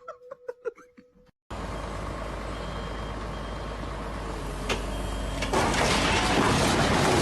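A vehicle or heavy machine running steadily with faint, short alarm beeps, growing louder about five and a half seconds in. Before it, about a second of clicks over a humming tone cuts off abruptly.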